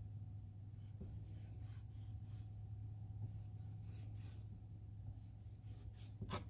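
A knife scoring slits into a whole striped bass, a few soft scraping strokes through the skin, over a low steady hum.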